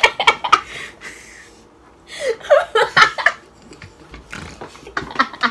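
Two women laughing in bursts: a run of laughter at the start, a short lull, then a second round of laughing about two seconds in, trailing off into softer laughs near the end.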